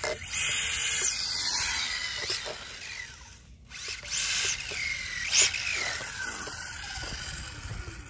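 Brushless electric motor of a HoBao Hyper VTE RC car whining as the throttle is worked, in several rising-and-falling sweeps over a steady hiss, with a short lull about halfway.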